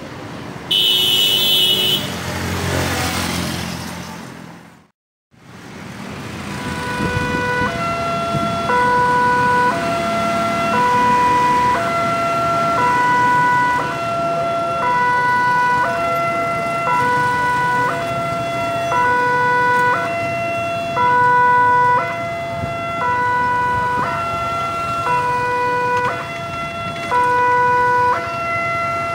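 Electronic warning alarm of an Indonesian railway level crossing sounding as the barrier comes down for an approaching train: two tones, a higher and a lower, alternating about once a second. Before it starts there is a short, loud high tone and a vehicle passing close by, then a brief drop to silence.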